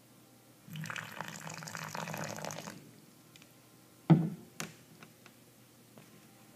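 Water poured into a can of instant snow powder for about two seconds, then a sharp knock followed by a lighter one and a few faint clicks.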